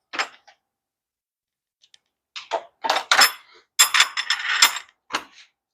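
Metal hand tools and parts clinking and rattling as they are handled, a brief click at the start and then several quick clusters of clinks from about two seconds in.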